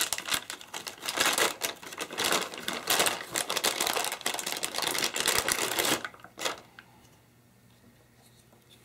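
Crinkly silver metallic wrapping being crumpled and peeled open by hand, a dense crackling that stops about six seconds in, followed by a single short click.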